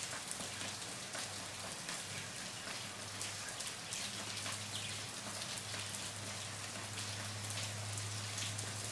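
Steady rain falling, with many single drop hits standing out in an even hiss. A faint steady low hum lies beneath.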